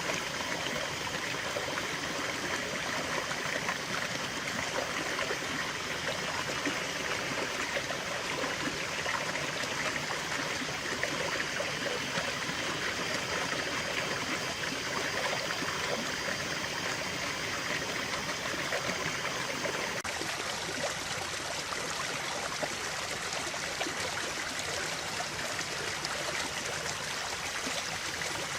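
A stream flowing: a steady, even rush of running water.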